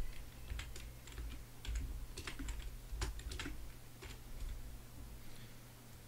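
Computer keyboard typing: irregular keystrokes in short runs, thinning out after about four seconds.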